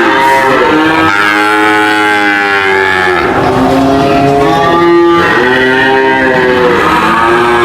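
Cattle mooing: several long, drawn-out moos one after another, each running into the next with no pause.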